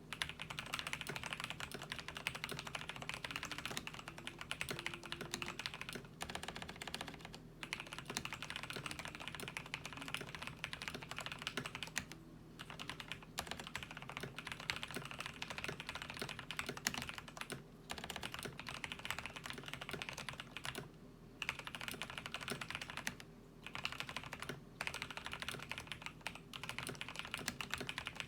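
Fast, continuous typing on a Ducky Shine 5 mechanical keyboard with fully lubricated Cherry new white linear switches. The dense clatter of keystrokes breaks off briefly a few times.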